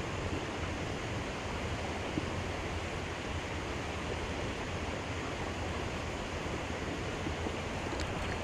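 Steady rush of river water pouring over a low dam, with a few faint clicks near the end.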